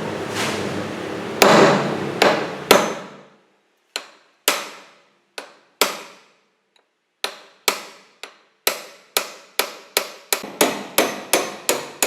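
Hammer striking metal, each blow ringing briefly. The blows start sparse and quicken to about two or three a second: the lock nuts on a Vespa VBB steering shaft being knocked loose.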